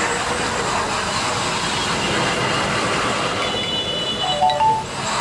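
A large egg omelette sizzling on a hot street-stall griddle: a steady hiss. About four and a half seconds in there is a brief, loud high tone.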